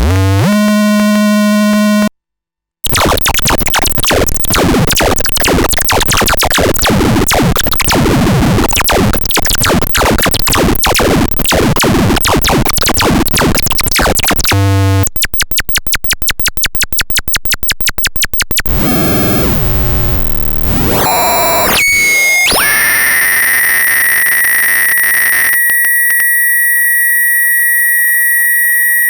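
Paratek "Космический шум" Eurorack noise module, a dual Jupiter Storm-style bank of square-wave oscillators, producing a run of harsh electronic textures. Buzzy pitched tones cut off about two seconds in. After a short silence comes a long stretch of dense, crackling noise, then a fast even pulsing, then sweeping pitch glides, and finally a steady high whistle of several held tones.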